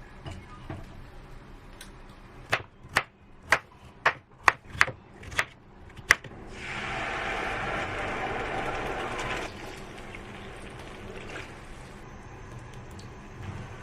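Kitchen work: a run of about eight sharp clicks or taps over a few seconds, then water runs for about three seconds and stops suddenly.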